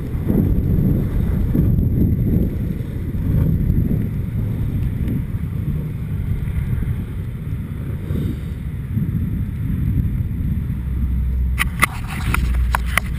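Steady low rumble of wind and longboard wheels rolling fast on asphalt. About three-quarters of the way through, a quick run of sharp clicks and knocks begins.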